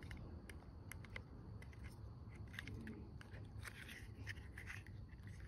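Faint, scattered clicks and scrapes of small motorcycle turn-signal parts being handled and fitted by hand, over a low steady background rumble.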